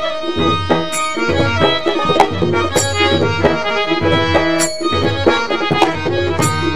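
Instrumental introduction of Indian devotional music: harmonium holding chords over tabla strokes, with sharp strikes of small brass hand cymbals (manjira).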